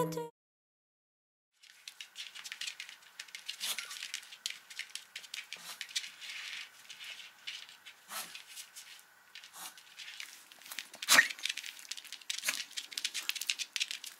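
Excited old dog moving about: a dense run of quick clicks and rattles with a few louder knocks, the loudest about eleven seconds in.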